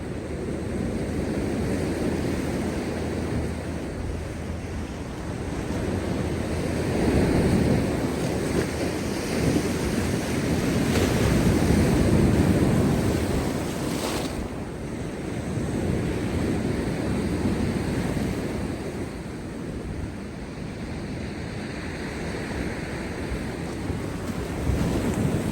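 Large waves breaking and surging on rocks after a storm, a continuous roar that swells and eases in slow surges, loudest about halfway through. Wind buffets the microphone.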